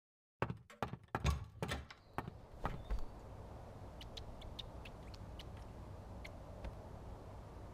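A quick run of knocks and thuds, with the loudest around one to one and a half seconds in, dying away about three seconds in. Then a steady low hum with a few faint ticks.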